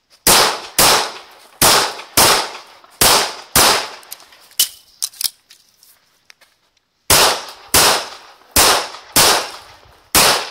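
CZ Tactical Sport pistol firing in quick pairs, about half a second between the shots of each pair: three pairs, a pause of about three and a half seconds, then three more pairs.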